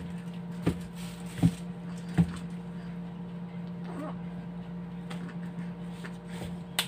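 A sharp crack near the end as a pair of disposable wooden chopsticks is pulled apart, after a few soft knocks in the first couple of seconds, over a steady low electrical hum.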